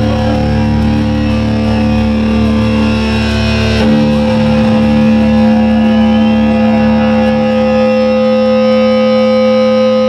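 A hardcore band's distorted electric guitars, played loud through the amplification, holding steady ringing tones. About four seconds in the chord is struck anew and keeps ringing over a pulsing low end.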